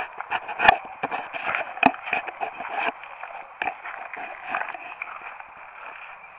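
Footsteps of skeleton spiked shoes crunching and clicking irregularly on the ice of the track, over a steady hiss.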